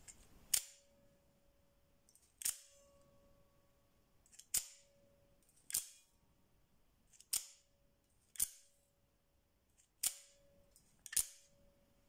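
Out-the-front automatic knife firing its blade and snapping it back: eight sharp metallic snaps one to two seconds apart, each followed by a brief metallic ring.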